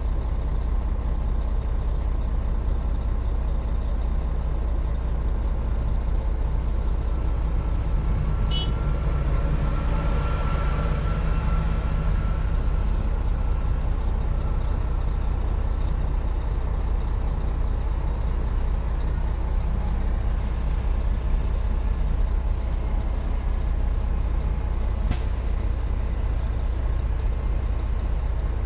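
Freightliner truck's diesel engine running steadily, a deep low drone, with a short rushing hiss about ten seconds in.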